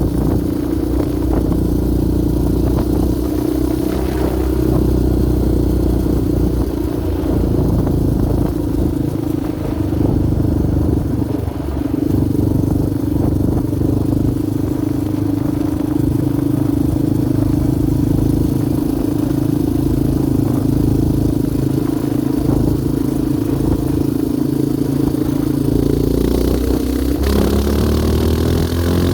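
Yamaha Raptor 700R sport quad's single-cylinder four-stroke engine running steadily while riding, its pitch shifting up and down near the end.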